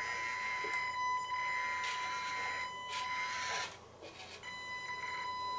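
Brushed electric motor and gear drive of a 1/16 Reely Mini Freemen RC crawler driving slowly: a steady high whine with a hiss of gear noise. The whine stops briefly about two-thirds of the way through and then starts again.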